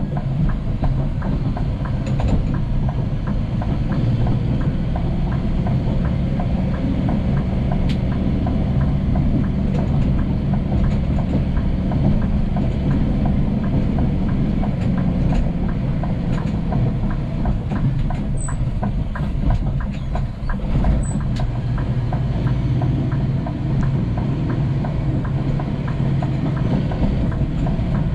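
Heavy truck under way: a steady low engine and road noise with frequent clattering rattles.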